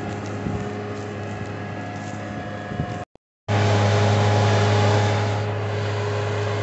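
New Holland tractor's diesel engine running steadily under load, pulling a subsoiler through moist soil. The sound breaks off for about half a second around three seconds in and comes back louder.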